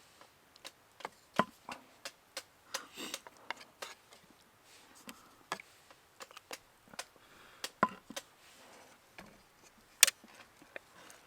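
Irregular sharp knocks and clicks of handling work at a camp cooking site, one or two a second at uneven spacing. The sharpest come about a second and a half in, near the eight-second mark, and about ten seconds in.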